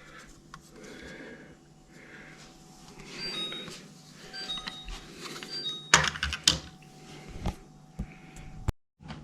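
Quiet handling of plastic fridge air-filter parts, with a few sharp clicks and knocks in the second half.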